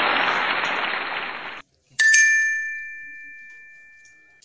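A single bright chime or ding, struck once about halfway through and fading slowly over two seconds or so. Before it, a steady even hiss cuts off abruptly, leaving a moment of silence.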